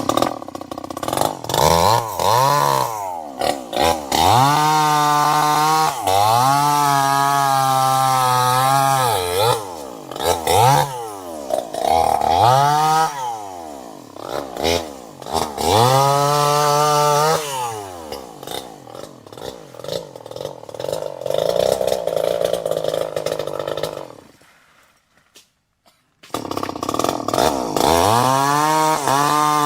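Two-stroke chainsaw engine revving over and over: the throttle is opened to a high, steady scream held for a second or two, then let back down, several times. In the middle it runs lower and rougher, it cuts out briefly near the end, then revs straight back up.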